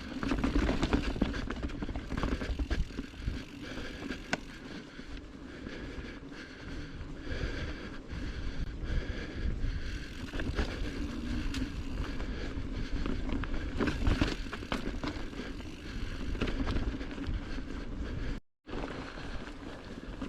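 Giant Trance mountain bike being ridden on dirt singletrack: tyres rolling and crunching over the trail, the bike clattering and rattling over bumps, with wind on the microphone. The sound cuts out for a moment near the end.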